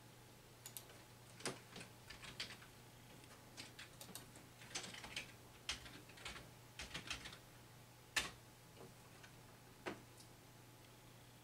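Computer keyboard keys tapped in short irregular runs, with one louder keystroke about eight seconds in, over a faint steady low hum.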